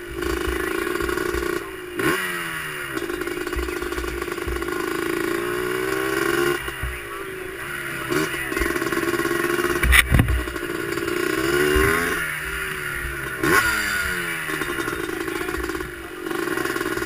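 Air-cooled racing ATV engine running at low speed, its pitch rising and falling repeatedly as the throttle is blipped and eased off, with a sharp knock about ten seconds in.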